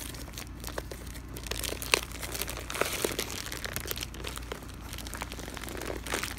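Thin clear plastic packaging bag crinkling and crackling in irregular bursts as it is handled and pulled open.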